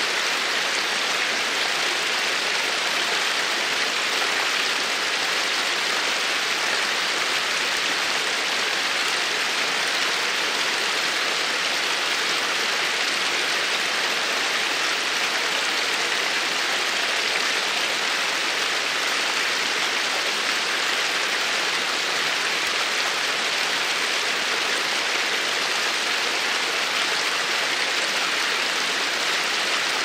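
Stream water running: a steady, even rush of water with a hissing character and no distinct splashes.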